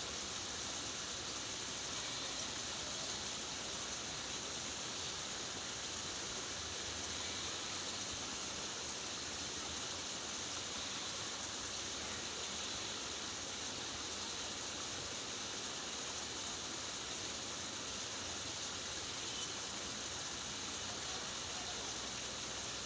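Steady hiss of water, even and unbroken, with no separate splashes or other events standing out.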